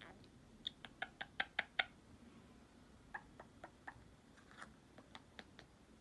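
Pet parrot making a quick run of about six sharp clicks about a second in, followed by scattered softer clicks and chirps.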